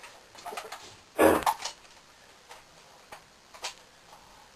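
Clicks and knocks of an M4-style BB gun being handled, its magazine out, with one loud sharp knock, quickly doubled, about a second in, and a few faint clicks after it.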